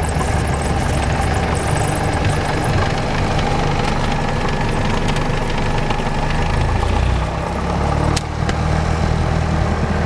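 Single-engine piston airplane's engine idling with the propeller turning as the plane rolls out on the runway after landing, heard from inside the cabin. A sharp click about eight seconds in.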